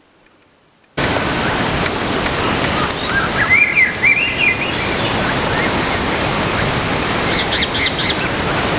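Wind blowing on the microphone: a loud, steady rush that starts abruptly about a second in. A small bird chirps in short phrases through it, around three to four seconds in and again near the end.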